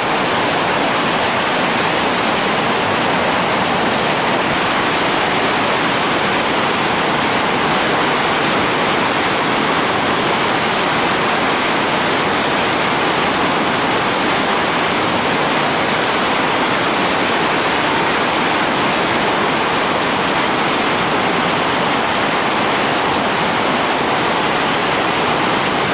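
Loud, steady rush of whitewater rapids: river water pouring over and around boulders.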